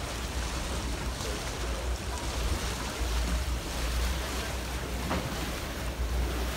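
Wind rumbling on the microphone over a steady wash of churned water from a boat's outboard propellers as it manoeuvres beside a dock.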